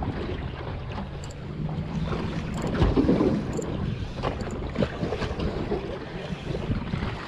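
Wind buffeting the microphone and water lapping against a small fishing boat's hull, with a few sharp knocks.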